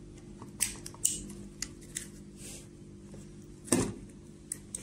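Scattered small clicks, knocks and rustles of a plastic radio module and its cable being handled, the loudest knock about three and a half seconds in, over a faint steady hum.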